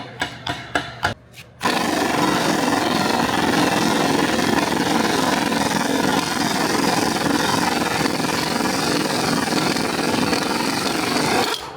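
A few light metallic clicks, then a power tool runs loud and steady for about ten seconds before cutting off suddenly near the end.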